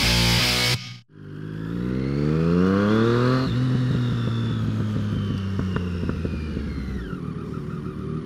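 Rock music ends about a second in. Then a 2013 Triumph Street Triple R's 675 cc inline three-cylinder engine pulls up through the revs for a couple of seconds, holds and eases off, and its pitch drops lower near the end.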